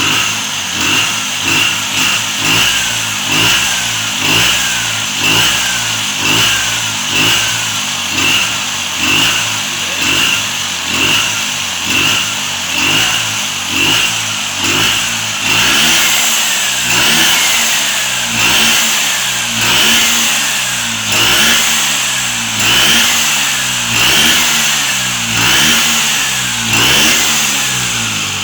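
Tuned racing Vespa scooter engine being blipped on the throttle over and over, revving up and dropping back about once a second. The blips come a little further apart in the second half.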